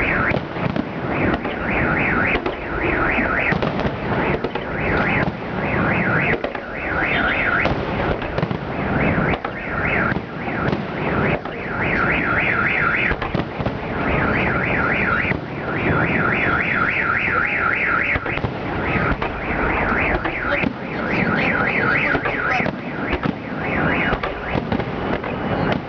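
Fireworks salute bursting continuously in a dense run of bangs. Over it a car alarm warbles in repeated runs of a few seconds, set off by the blasts.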